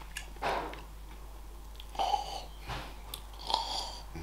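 Eating with a fork from a plate: the fork scrapes and clinks on the plate, with two sharp ringing clinks about two seconds in and again about three and a half seconds in, and chewing in between.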